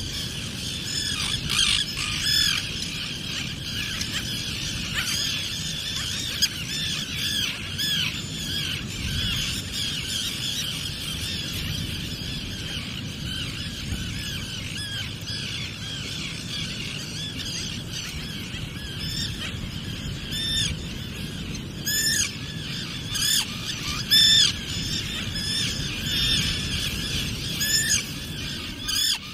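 Common terns calling, a dense colony chorus of many overlapping rising-and-falling calls. Several louder, close calls come in quick succession in the last third, as an adult arrives at its chick with food.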